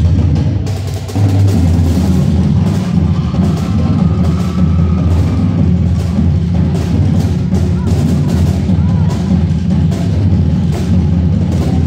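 Marching drum line playing together: snare drums, tenor drums and bass drums in a steady rhythm, with a brief drop in volume about a second in before the full line comes back in.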